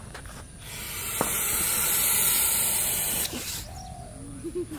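Indian rock python hissing: one long, loud hiss of about three seconds that starts just under a second in and stops sharply. It is the defensive hiss of an angry snake, a sound that can be mistaken for a Russell's viper's.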